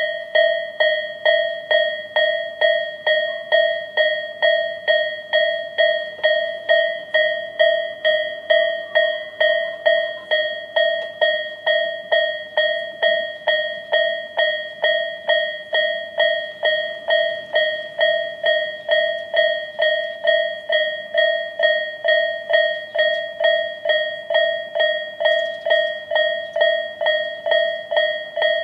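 Japanese railway level-crossing warning bell of the electronic Tobu 'sound A' type, switching on suddenly and striking evenly at about two strikes a second at one steady pitch: the signal that a train is approaching the crossing.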